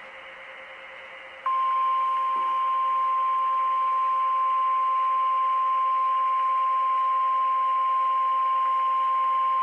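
NOAA Weather Radio's warning alarm tone: a single steady high tone at about 1050 Hz over a radio hiss, starting about a second and a half in and holding unbroken. It announces that a new warning broadcast follows.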